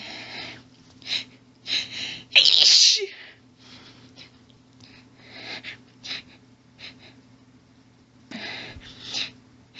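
A woman's rapid sneezing fit: a run of short, sudden sneezes and sharp hitching breaths, with one loud full sneeze about two and a half seconds in.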